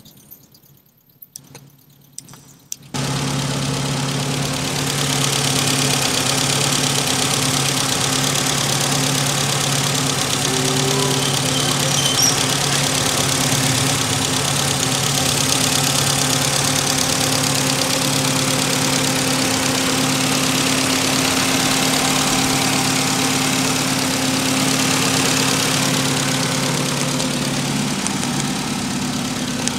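Suzuki Esteem's 1.3-litre carburetted four-cylinder engine idling steadily, heard close up from a wireless microphone held over the engine bay. The sound comes in suddenly about three seconds in. The seller judges the engine healthy and normal.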